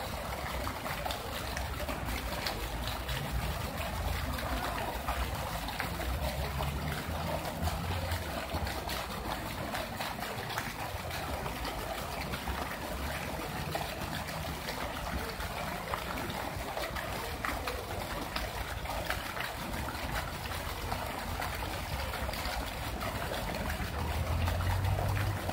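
Fountain jets falling into a pool basin: a steady rush and splash of water. A low rumble comes and goes beneath it, swelling near the end.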